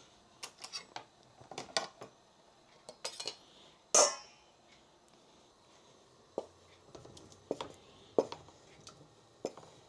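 Cookware and utensils clattering in a kitchen: a string of clinks and knocks, with one loud, ringing metallic clang about four seconds in.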